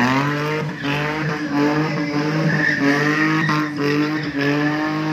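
Mini pickup truck's engine held at high revs while the truck drifts, its pitch climbing at the start and then holding steady, with tyres squealing.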